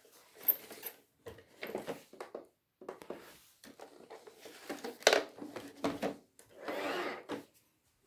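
Roomba brushrolls and plastic parts being handled: a series of separate clicks, rattles and scrapes, with a sharper knock about five seconds in and a longer scraping rattle near the end.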